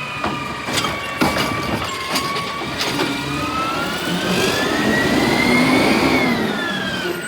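Garbage truck's engine and hydraulic system revving up and down as it works, a whine that rises for about three seconds and then falls, with several metallic clanks in the first three seconds.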